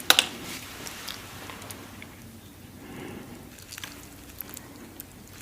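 Close-miked eating sounds: a sharp click at the very start, then scattered soft mouth clicks and smacks.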